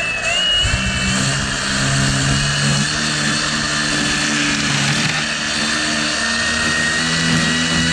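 String trimmer (weed eater) running steadily at high speed while cutting grass, its small engine's note shifting slightly a few times, with a high steady whine on top.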